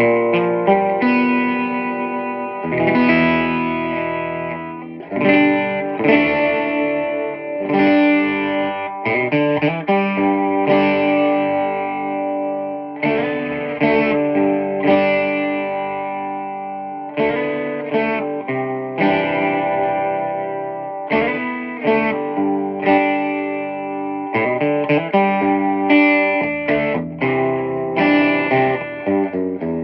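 Electric guitar played through a Peavey 6505+ combo amp fitted with an 8-ohm Eminence Swamp Thang speaker. Chords are struck and left to ring, with bursts of quicker strumming and picked notes partway through and near the end.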